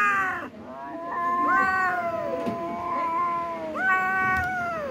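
Cats yowling in long, drawn-out calls that sometimes overlap, one after another.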